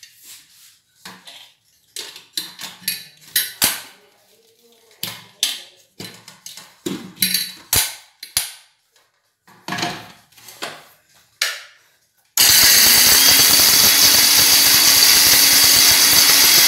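Clattering of dry-roasted coconut pieces and a steel mixer-grinder jar as the jar is loaded and its lid fitted. About twelve seconds in, a Sujata mixer grinder's motor starts and runs loud and steady, grinding the roasted coconut.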